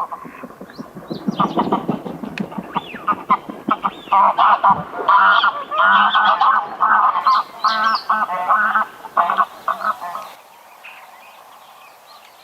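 Greylag geese honking: many loud, overlapping calls in quick succession, which cut off abruptly about ten seconds in, leaving faint background sound.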